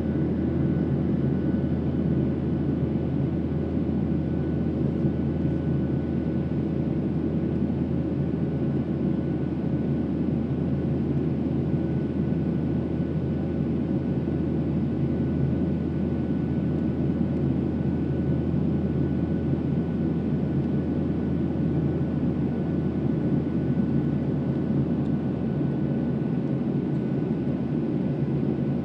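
Steady in-flight cabin noise of a Boeing 737-700, heard inside the cabin beside the wing: the deep drone of its CFM56 turbofan engines and rushing airflow, with a few faint, steady whining tones above it.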